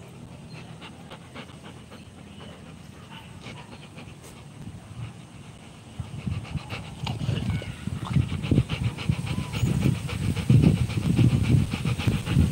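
A Rottweiler panting hard with its mouth open, a quick even run of breaths. About halfway through the panting gets much louder as the dog's open mouth comes right up to the microphone.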